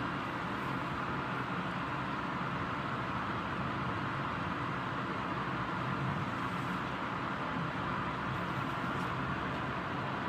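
Steady rain falling during a thunderstorm: an even hiss with no thunderclap.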